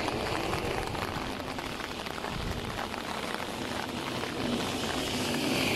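Steady rain falling, an even hiss of countless drops with some wind, growing a little louder near the end.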